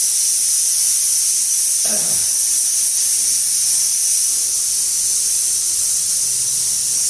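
A steady high-pitched hiss, with a brief voice about two seconds in.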